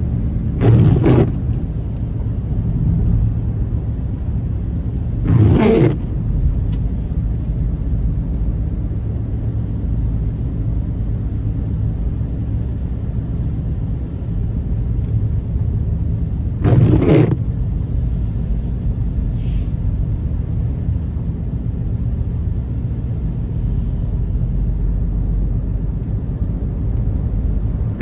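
Steady road and engine rumble of a car driving on a wet highway, heard from inside the cabin. Four brief, louder swishing sweeps cut across it, about a second in, near the sixth second, and then twice more about eleven seconds apart.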